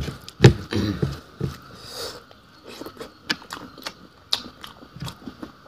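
Close-up mouth sounds of a person eating: irregular chewing with wet clicks and smacks, a little louder in the first second.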